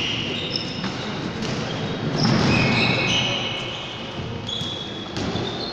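Basketball bouncing on a hardwood court during play, with sneakers squeaking in several short, high-pitched squeals.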